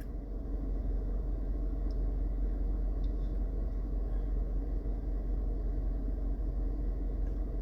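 Steady low rumble, even throughout, with no clear events standing out.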